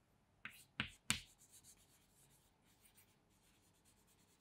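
Chalk writing on a chalkboard: a few sharp taps in the first second, then faint scratching strokes.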